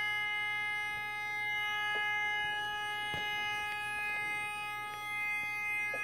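A steady electronic alarm tone at one fixed pitch with many overtones, holding without rising or falling, with a few faint clicks underneath.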